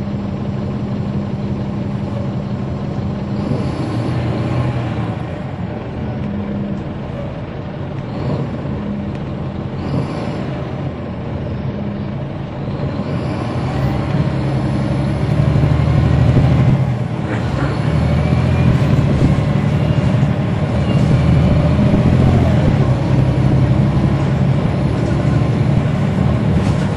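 Caterpillar C13 diesel engine of a NABI 40-SFW transit bus heard from on board, running steadily and then pulling harder and louder from about halfway through, with a brief dip about two-thirds in as the automatic transmission changes gear. A couple of brief hisses come in the first half.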